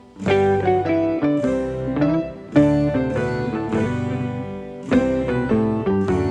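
Instrumental background music with plucked, guitar-like notes carrying a melody.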